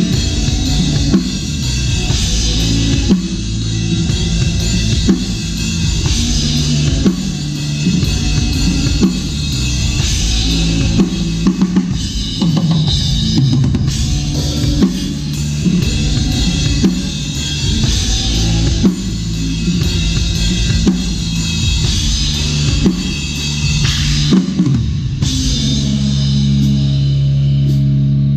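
Drum kit played along with a band song, with kick drum, snare and cymbals over the music. Near the end the drumming stops and a low held chord rings on.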